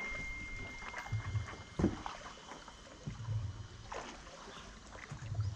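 Wooden shikara being paddled along: water swishing and lapping at the hull, with a stroke about every two seconds. A thin steady high tone sounds over the first two seconds.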